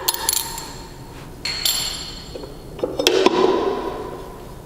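Steel blade flanges being taken off a 16-inch electric concrete saw: several sharp metal clinks, each left ringing briefly.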